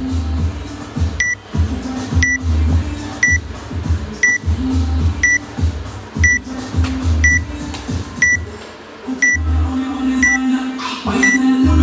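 Workout countdown timer sounding short, high electronic beeps once a second, eleven in all, counting down to the start of the workout. Background music with a steady beat plays underneath.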